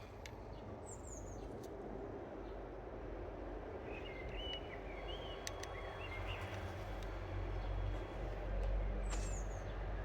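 A few short bird chirps: a high falling pair about a second in, a cluster in the middle and another high pair near the end. Under them runs a steady noisy rumble that grows louder toward the end.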